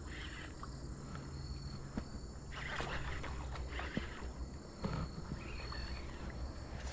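Crickets chirping faintly over a low steady outdoor rumble, with a few short splashy noises about halfway through and again near five seconds in, as a fish hooked on a buzzbait is played in.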